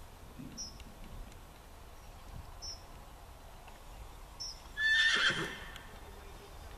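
A horse neighing once, a short high call about five seconds in, over faint hoofbeats on the arena sand.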